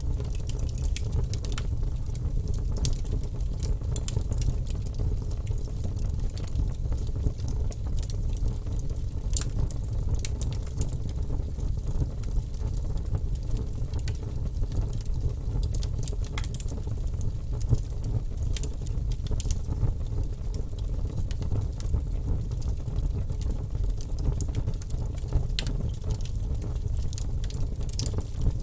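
Fire burning in a fireplace: a steady low rumble of flames with frequent irregular crackles and pops.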